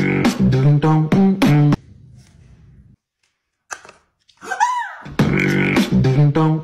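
A short melodic phrase of quick, clipped notes, heard twice, each time led in by a quick upward-then-downward swoop, with a few seconds of near quiet between the two.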